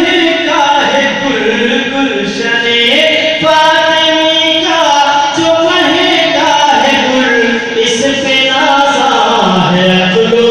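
A man singing a manqabat, a devotional Sufi praise song, into a microphone. He draws out long, wavering notes that step up and down in pitch.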